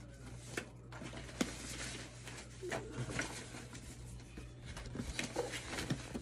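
A hand rummaging through a box of paper slips and cards: irregular rustling and crinkling paper with scattered light clicks and taps.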